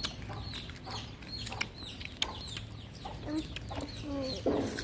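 Birds chirping: short high calls, each falling in pitch, several a second. Sharp clicks are scattered among them, and a few lower calls come in the second half.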